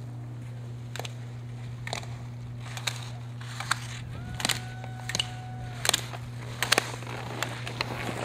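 Slalom gate poles clacking as the racer cross-blocks through the gates, a sharp hit about once a second, coming a little faster toward the end, over a steady low hum. A steady tone is held for about two seconds midway.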